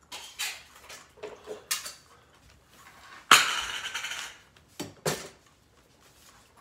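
Clatter of cat food bowls and cans being handled: several short clinks and rattles, a sudden loud clatter about three seconds in that dies away over about a second, then two sharp knocks.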